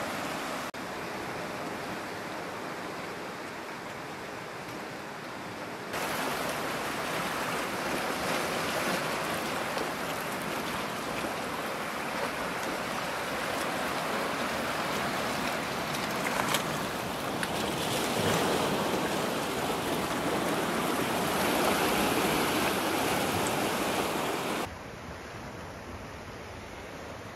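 Sea surf washing in and out among shoreline rocks, a steady rush of water that gets louder about six seconds in and drops back near the end.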